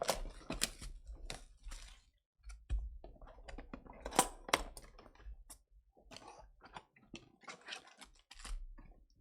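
A 2021 Bowman Chrome Lite box of baseball cards and its packs being opened by hand: irregular clicks and crackles of packaging being pulled open and handled.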